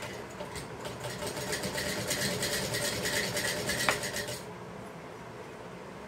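Hand-cranked sewing machine stitching cloth: a fast, even clatter of needle strokes that grows louder over the first two seconds, with one sharp click near the end, then stops abruptly about four and a half seconds in.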